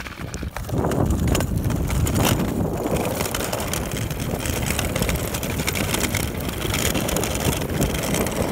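Rushing wind on the microphone of a moving camera with low road rumble, rising suddenly about a second in and then holding steady.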